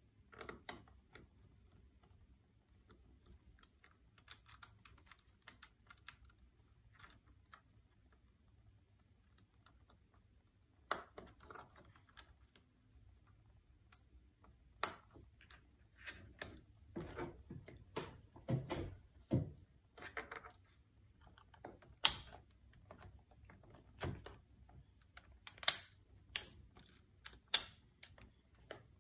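Irregular small clicks, taps and light rattles of a screwdriver and plastic parts as screws are driven and pieces pressed into place on the underside of an HP DV6 laptop. Sparse at first and busier in the second half, with a few sharper clicks.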